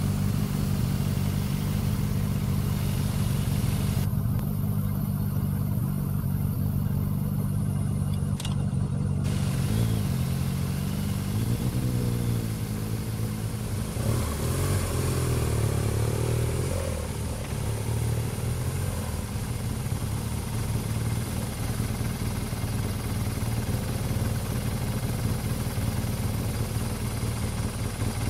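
Several large adventure motorcycles riding slowly on a dirt road: a steady low engine drone, with the pitch rising and falling as the throttle is worked, about ten to seventeen seconds in.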